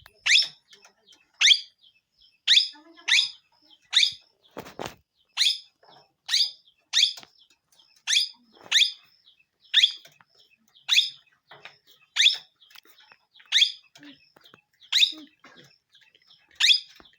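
Pet parrot calling: short, sharp, high-pitched calls repeated about once a second in a steady series.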